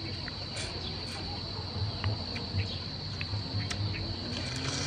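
Insects droning steadily at one high pitch, with faint short crackling clicks as a cooked river prawn is bitten and chewed.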